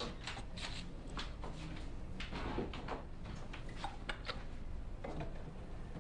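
A run of small knocks, clicks and rustles from someone handling things at a bedside table.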